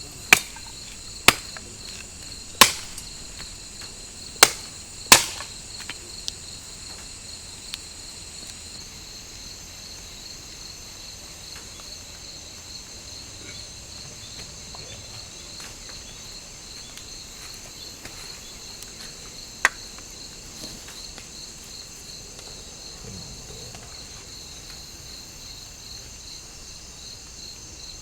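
Forest insects trilling steadily at two high pitches, one of them pulsing. Five sharp knocks come in the first five seconds and one more about twenty seconds in.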